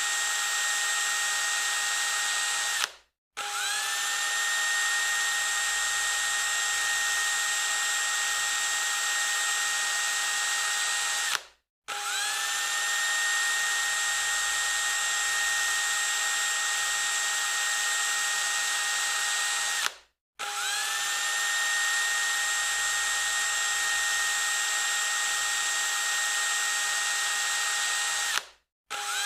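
Electric drill running at full speed with a steady high whine. It cuts off suddenly and spins straight back up with a brief rising whine, about every eight and a half seconds.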